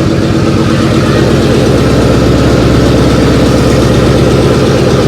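Car engine idling loudly just after being started, a steady rumble that grows a little louder about a second in.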